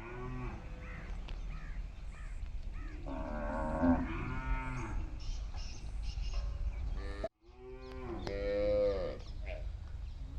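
Indian desi cows mooing, several drawn-out calls one after another, the loudest near the end, over a low steady rumble. The sound drops out for a moment about seven seconds in.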